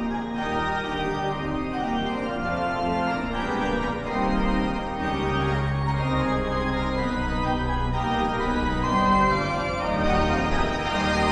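Organ music: a melody of changing held notes, with organ-like sustained tones throughout.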